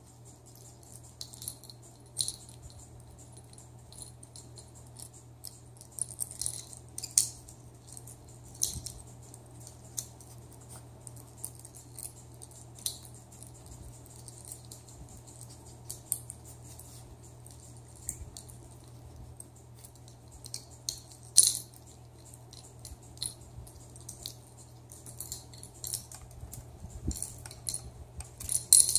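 Small plastic toys rattling and clicking as a pet raccoon paws and mouths them: light, irregular clicks and jingles, a few sharper ones now and then.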